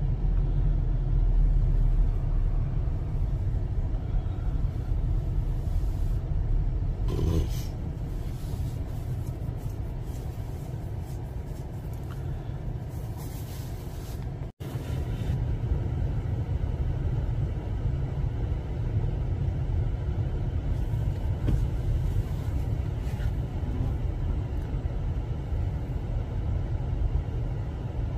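Low, steady vehicle rumble heard from inside a car, cutting out for an instant about halfway through.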